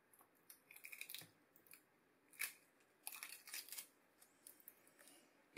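Faint crackles and small clicks of Kapton tape being pulled and pressed down by hand, in a few short clusters.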